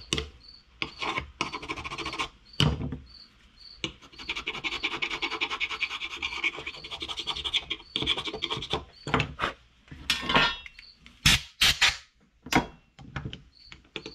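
Old gasket material being scraped off a Tecumseh small-engine carburetor part with a metal scraper: rapid rasping back-and-forth strokes, dense and continuous in the middle, followed by a few sharp clicks near the end.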